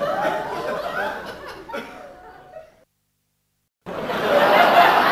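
Laughter that breaks off a little under three seconds in, leaving a second of dead silence before louder laughter resumes.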